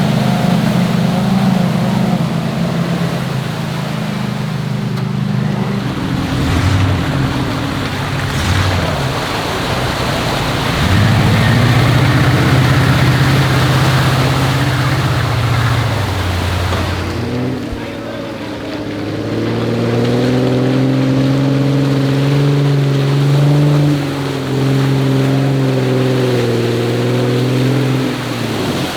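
Jeep engine working under load, its pitch rising and falling as it revs, with a steady rush of water as it drives through deep floodwater.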